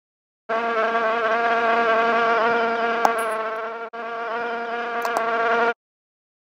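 Buzzing of a flying fly, a steady buzz with a short break about two thirds of the way through that stops suddenly near the end; a few faint ticks sound over it.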